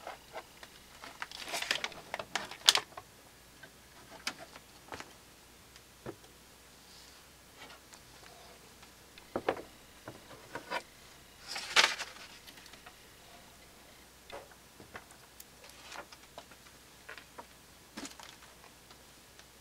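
Vacuum tube amplifier kits and circuit boards being moved by hand and set down on a cardboard-covered table: scattered light knocks, taps and short scrapes at irregular times, loudest about three seconds in and again about twelve seconds in.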